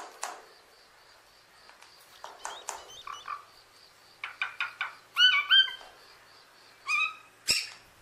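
Common hill myna giving a series of short, sharp calls, the loudest pair about five seconds in, with a sharp click near the end. A faint steady high pulsing sound runs in the background.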